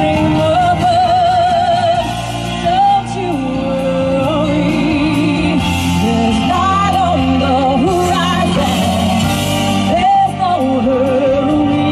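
Music with a singing voice holding long, wavering vibrato notes over a sustained accompaniment, with no words.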